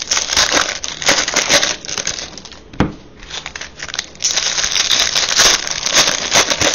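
Plastic card-pack wrappers crinkling and rustling as jumbo packs of baseball cards are handled and torn open, with a sharp click about three seconds in and a denser spell of crinkling near the end.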